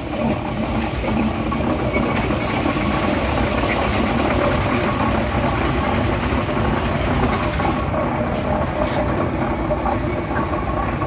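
Case steam traction engine running steadily as it drives slowly past.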